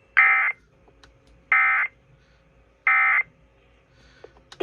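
Emergency Alert System End of Message signal: three short, shrill digital data bursts (the SAME 'NNNN' code) a little over a second apart, closing a flash flood warning broadcast over the radio.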